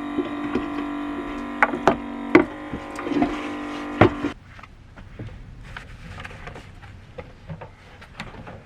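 A small electric motor hums steadily for about four seconds and then cuts off, with sharp clicks and knocks of objects being handled during and after it.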